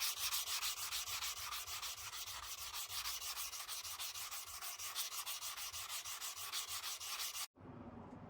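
Rapid back-and-forth hand sanding or rubbing on the rusty steel of a sword, about five strokes a second in an even rhythm. It cuts off abruptly near the end, leaving a faint low hum.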